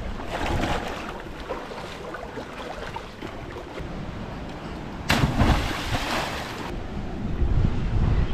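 Wind on the microphone over sloshing water and surf. A louder rush of noise comes a little past halfway, lasts about a second and a half and stops suddenly.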